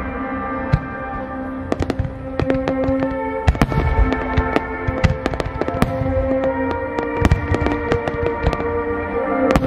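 Starmine fireworks barrage: shells bursting and crackling in quick, overlapping bangs, densest from about two seconds in. Music with long held notes plays underneath.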